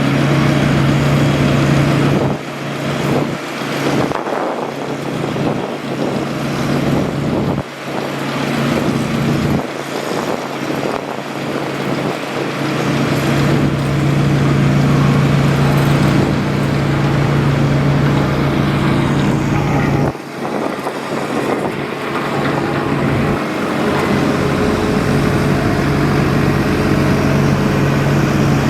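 Engine of heavy road-construction machinery running steadily, a continuous low hum under a wash of mechanical noise, briefly dropping in level a few times.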